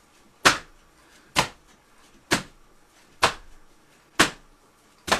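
Body percussion: hand slaps struck on the downbeat, six sharp, evenly spaced strikes about one a second.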